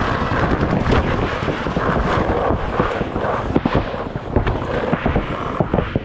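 Wind rushing over the microphone of a camera mounted on a moving paintball marker. From about halfway in, a growing run of sharp paintball shots pops several times a second.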